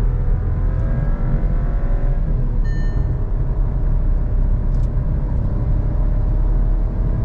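Skoda Kushaq 1.0 TSI three-cylinder turbo petrol engine at full throttle, heard from inside the cabin over heavy low road rumble. Its note climbs, drops at an automatic upshift about two and a half seconds in, then climbs again more slowly during the slight dip in pull around 80–90 km/h. A short electronic chime sounds about three seconds in.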